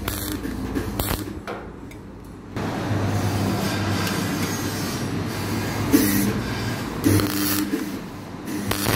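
A couple of short crackling MIG tack-weld bursts on aluminium near the start. Then, from about two and a half seconds in, a steady rumbling noise with a low hum that lasts most of the rest.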